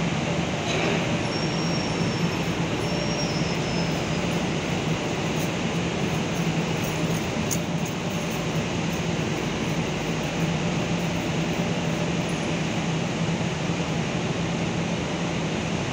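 Steady mechanical drone with a constant low hum underneath.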